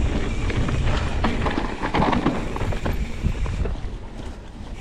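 Wind buffeting an action camera's microphone with its wind reduction switched off, a steady low rumble over the clatter and knocks of a mountain bike riding over a dirt trail.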